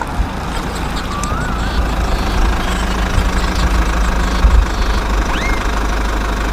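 A small motor running steadily with a fast, rough pulsing, with a few short rising chirps about a second in and near the end.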